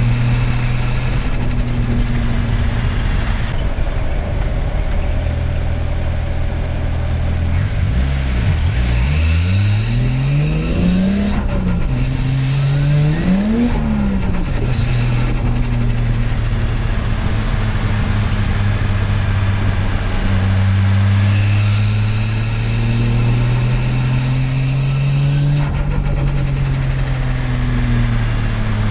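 1JZ turbocharged inline-six engine in a Nissan S14, heard from inside the car. It runs steadily, then revs climb hard with a rising turbo whistle, drop at a shift, climb again and fall off with a brief fluttering chatter as the throttle closes. After that it settles into a steady cruise with a slow rise and fall in revs.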